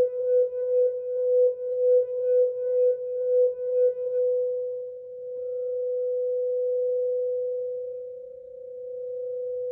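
Quartz crystal singing bowl sounding a pure tone near 528 Hz. It pulses about twice a second for the first four seconds, then settles into a smooth held tone that slowly swells and fades.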